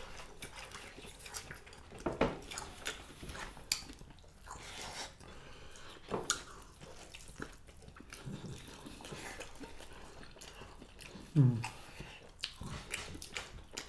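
Wet mouth sounds of people eating by hand: chewing and lip smacks with scattered small clicks. There is a brief low hum of the voice about eleven seconds in.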